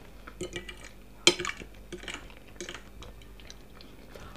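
Metal fork scraping and clinking against a glass plate while scooping up mashed potatoes. There are several short clinks, the sharpest about a second in.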